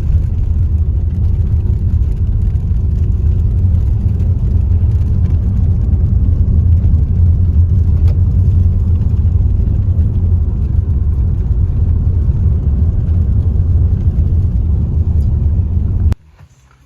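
Steady low rumble of a moving motor vehicle, cutting off suddenly near the end.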